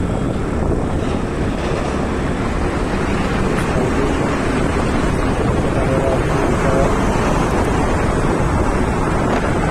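Steady wind buffeting the microphone on a moving Honda Activa 6G scooter, with the scooter's running and road noise underneath.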